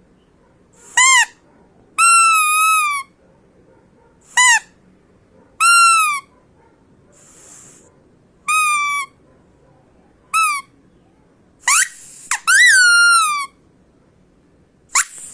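Rubber duck squeezed again and again, giving about nine separate squeaks. Some are short blips and others are drawn out for about a second, each bending down in pitch as it ends.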